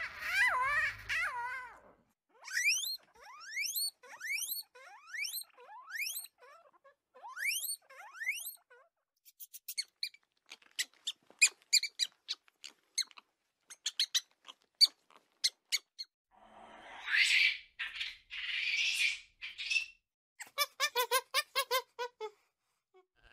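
A string of high-pitched animal squeaks and chirps. A lion cub's mewing call comes first, then runs of rising chirps and quick short squeaks from a mouse, then harsher calls, and squirrel monkeys chirping in quick pulses near the end.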